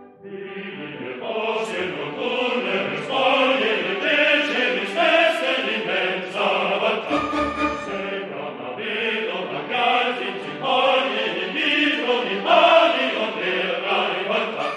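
Background music of a choir singing, a new piece beginning just after a brief dip at the start.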